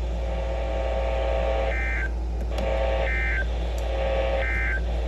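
Three short SAME data bursts from NOAA Weather Radio, each about a third of a second of shrill two-tone warble, about a second and a half apart: the end-of-message code that closes the Required Weekly Test. A steady buzzing hum runs between the bursts.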